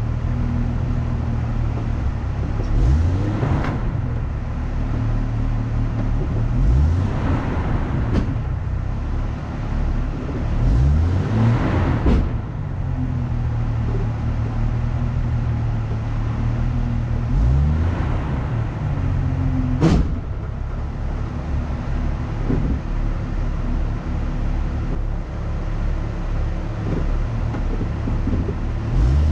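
Off-road vehicle engine running under load, revving up four times in rising pulls. There is a single sharp knock about two-thirds of the way through.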